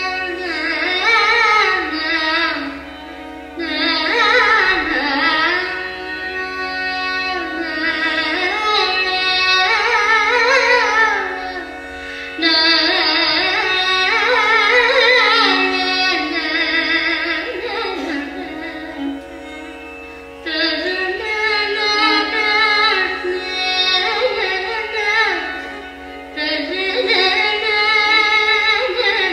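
Carnatic music in raga Mohanam: a girl's voice and violins play long gliding, ornamented melodic phrases over a steady drone.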